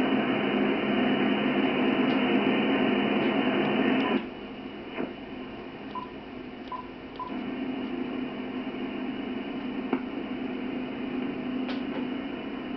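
HF transceiver receiving on 27.620 MHz upper sideband: band noise and static hiss through the receiver's narrow filter. About four seconds in the noise drops sharply as the attenuator is switched in, with a few short beeps from the radio's front-panel keys. The noise partly comes back a few seconds later as the settings change again.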